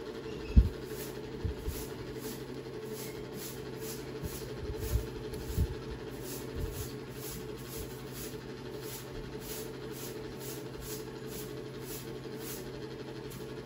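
A few dull low thuds and knocks as a brass rotary tattoo machine is handled and worked on at a workbench, the loudest about half a second in and a cluster around five seconds in. A steady hum runs underneath.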